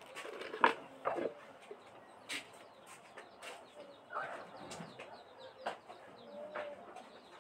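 Birds calling in the background: scattered short calls, with a sharp click a little under a second in.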